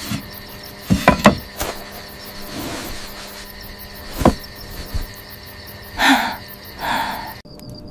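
Several sharp knocks, three in quick succession about a second in and one more near the middle, then two short rustling bursts near the end, over a steady soft background tone.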